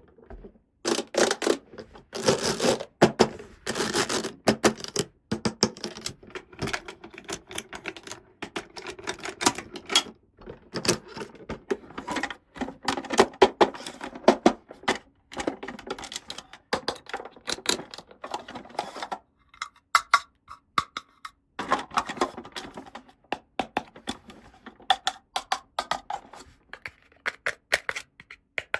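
Close-miked handling of small plastic toy pieces and packaging: a dense, irregular run of clicks, taps and crinkles, with a short pause about two-thirds of the way through.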